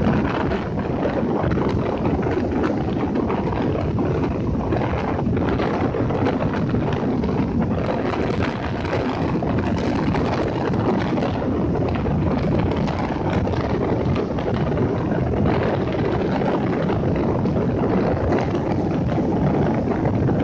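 Rough sea surf breaking and washing up a flat sand beach in a steady rush, with wind buffeting the microphone.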